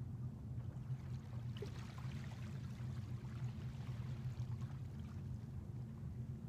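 Small waves lapping on a sandy beach, with a soft wash of water about two seconds in, over a steady low rumble.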